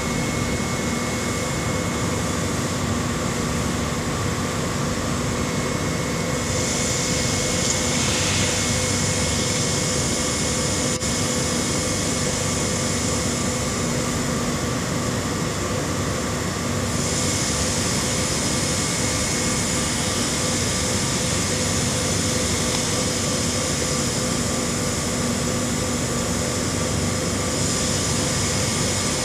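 Steady machine hum with several held tones running under the work. A higher hiss joins about six seconds in.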